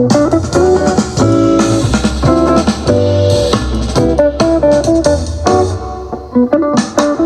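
JBL Charge 5 Bluetooth speaker playing guitar-led music with a bass line, at 60% volume.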